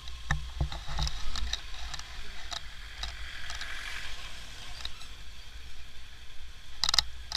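Motorcycle riding along a rough lane: a steady low engine-and-road rumble with wind on the microphone, and scattered clicks and knocks, the loudest just before the end.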